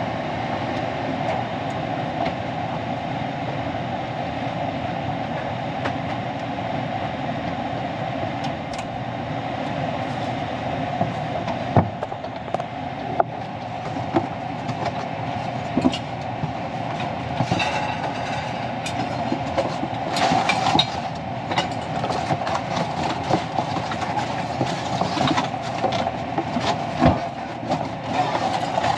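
Carrier gas furnace running with a steady mechanical hum. From about twelve seconds in, scattered sharp metal clicks and knocks from the sheet-metal door panel being worked back into place.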